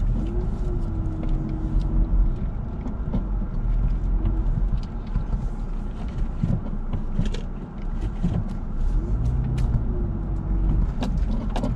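Car engine and road rumble heard from inside the cabin as the car moves slowly, the engine note rising and holding briefly twice. Scattered ticks and crackles run over the rumble.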